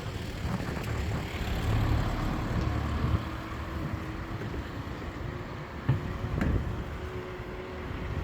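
Wind rumbling on the microphone over road traffic noise during a scooter ride. A steady hum comes in about two and a half seconds in, with a couple of short knocks around six seconds.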